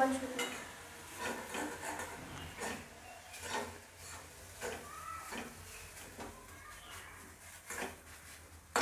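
Steel spatula scraping and tapping against a metal kadai as upma is stirred in it, in irregular scrapes and light clinks.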